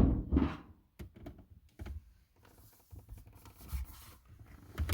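A loud knock and rustle at the start, then scattered light clicks, taps and scrapes of hands handling plastic dash trim and hardware in a car's interior.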